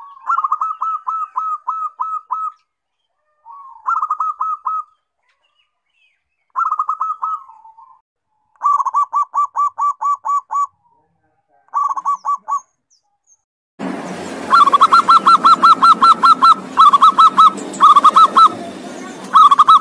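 Zebra doves (perkutut) cooing: a series of separate song recordings, each a rapid run of short hooked coo notes lasting one to two seconds, with silent gaps between them. About fourteen seconds in, a louder recording with a background hiss begins, its phrases following one another closely.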